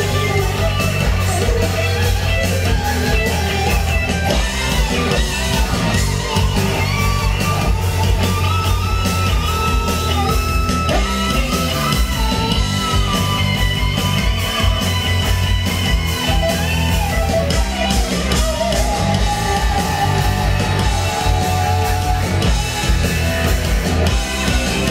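Live rock band playing: electric guitars, bass guitar and drum kit, loud and continuous, with a man singing into a microphone over them.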